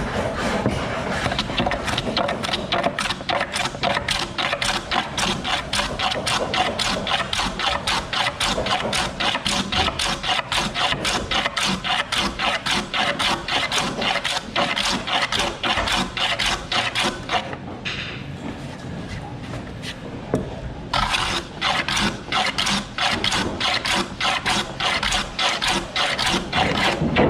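A hand tool cutting wood in a quick, steady rhythm of about four strokes a second, pausing for about three seconds two-thirds of the way through, then starting again.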